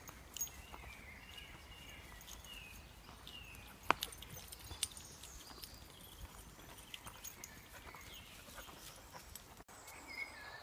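Faint woodland ambience: small birds singing at a distance, with a few sharp clicks and snaps, the loudest about four seconds in.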